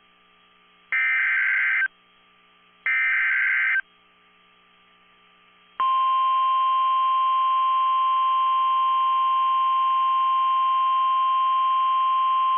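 NOAA Weather Radio emergency alert tones: two short bursts of the warbling SAME digital header, each about a second long and a second apart, then a steady, loud 1050 Hz warning alarm tone that starts about six seconds in and holds unbroken. The header encodes the alert, here a severe thunderstorm warning, and the 1050 Hz tone is the signal that a warning follows.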